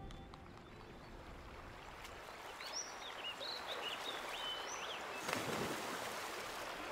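Shallow creek running over rocks, a steady rush of water, with a few birds chirping about three seconds in and a brief louder splash of water near the end.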